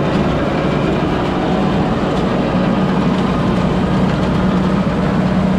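Kubota MU5501's four-cylinder diesel engine running steadily under load at about 1800 rpm in low second gear, driving a rotary seeder that tills and sows hard stubble soil. A steady hum strengthens about halfway through.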